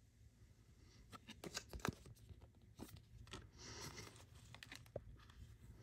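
Faint handling sounds while unpacking a presentation box: a run of light clicks and taps about a second in, then a short soft rustle of paper and cloth as the contents are lifted from the box, and one more small click near the end.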